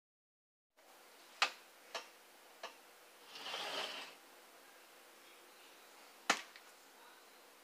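A few sharp clicks or knocks over quiet room tone: three light ones close together, a brief soft hissing rustle, then a single louder click near the end.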